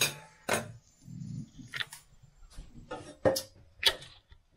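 Scattered sharp clicks and knocks of kitchen utensils and dishes being handled, about five separate strikes with a short muffled rumble between them.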